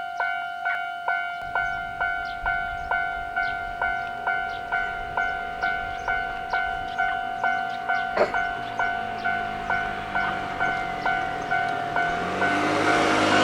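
Japanese railroad crossing warning bell ringing steadily, about two strikes a second. From about twelve seconds in, the rumble of an approaching train rises under it.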